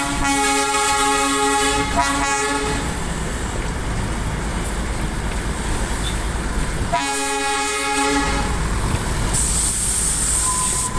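Darjeeling Himalayan Railway toy train's horn sounding twice over the train's steady running noise: a blast of about two and a half seconds, then a shorter one of about a second and a half midway. A hiss comes in near the end.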